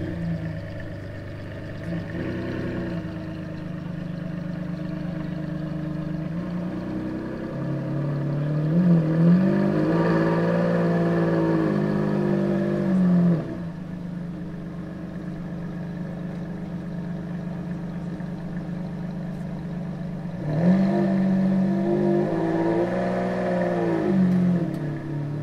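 Ferrari Enzo's 6.0-litre V12 running at idle, raised twice to a held higher engine speed: the note climbs about eight seconds in and holds for about five seconds before dropping back sharply, then climbs and holds again for the last few seconds.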